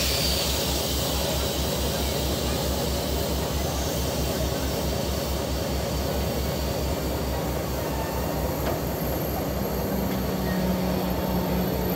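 SNCF BB 63000-class diesel locomotive (63240) idling at a standstill: an even, low throbbing engine beat with a hiss of fans and air over it. A steady low hum joins about nine and a half seconds in.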